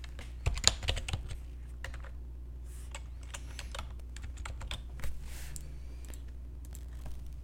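Computer keyboard keys clicking as code is typed, in short irregular runs with pauses between them, densest about half a second to a second and a half in. A steady low hum runs underneath.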